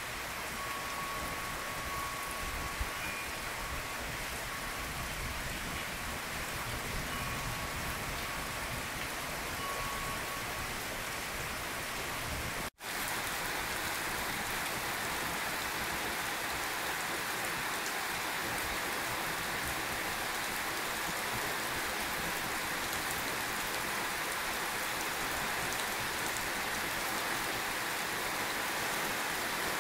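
Steady rain falling on forest vegetation, an even hiss of many drops. The sound drops out for an instant a little before halfway, then goes on slightly brighter.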